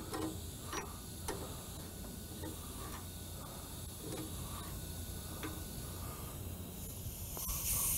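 Scattered light metallic clicks and ticks as a wrench turns the threaded tie rod adjusting sleeve to set the toe. A hiss comes in near the end.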